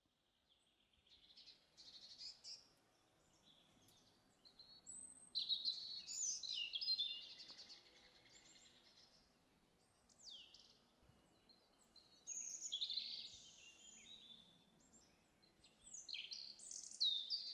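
Small birds singing: short groups of high chirps, trills and quick sweeping notes every few seconds, faint, with quiet gaps between.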